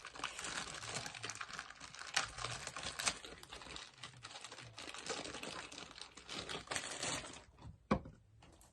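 Rapid, irregular clicking and crinkly rustling of objects being handled, easing off near the end, with one sharp knock about eight seconds in.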